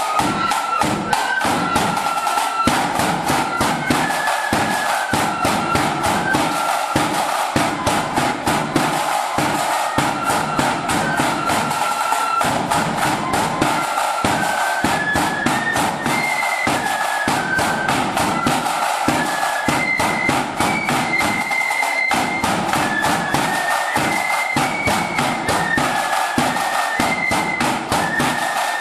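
Marching flute band playing a tune: flutes in unison carry a stepwise melody over a bass drum and side drums beating a steady march rhythm.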